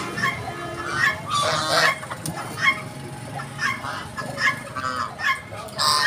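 A flock of domestic white geese honking, short calls following one another in quick succession.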